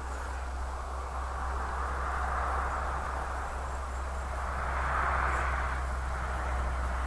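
Outdoor background noise: a steady hiss that swells twice and eases off, over a constant low hum.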